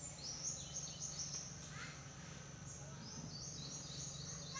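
Small birds chirping in quick, high-pitched notes, over a low steady hum.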